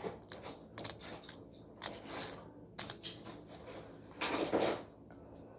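Plastic fidget toys being handled and set down: a few sharp clicks and clacks about a second apart, then a short rustling scrape about four seconds in.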